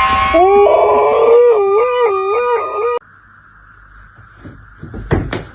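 Cat yowling: one long, loud, wavering cry that cuts off abruptly about three seconds in, followed by faint hiss and a couple of soft thumps.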